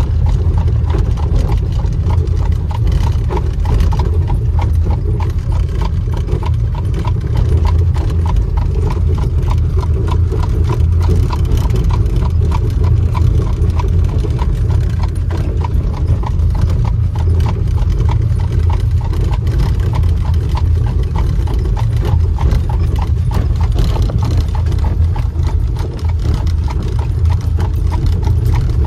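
Horse pulling an Amish buggy, its hooves clip-clopping at a steady trot on a paved road, heard from inside the buggy. Under the hoofbeats the buggy's wheels rumble low and steady.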